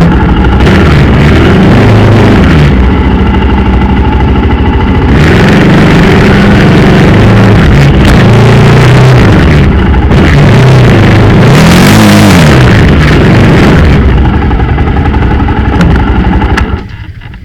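Motorcycle engine being ridden, loud, its pitch rising and falling again and again as the throttle opens and closes. The sound drops away suddenly just before the end.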